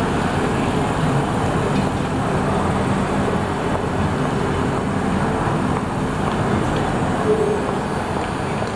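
Toyama Chiho Railway streetcar running away along its tracks, over a steady hum of city traffic.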